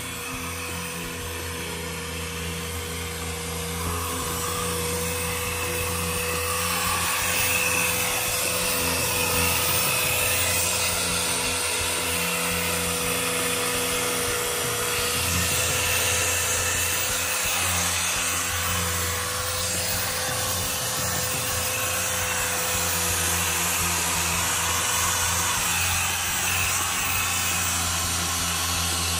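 A small electric motor running steadily with a hiss over it, typical of a power tool used in detailing, such as a vacuum or drill brush; it gets louder about four seconds in.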